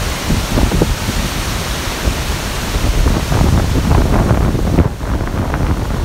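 Fast-flowing river rapids rushing over rocks, with wind buffeting the microphone, and a brief drop in level about five seconds in.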